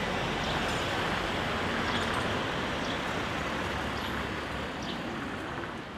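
Steady rush of road traffic noise that eases off slightly near the end.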